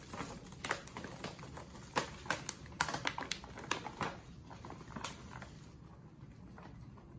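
Baking soda pouring out of a plastic resealable bag into a pot, the bag crinkling and crackling in irregular sharp clicks as it is tipped and shaken. The crackling settles to a quieter, steadier pour for the last second or two.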